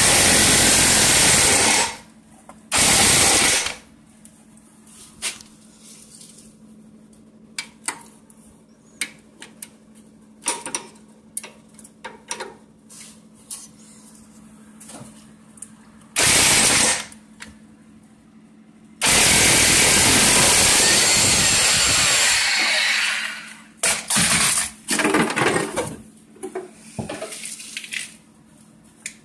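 Impact wrench hammering on a 19 mm suspension bolt, in repeated bursts: two near the start, one midway, a long run of about four seconds later, then several short bursts near the end, with small metal clicks and knocks between.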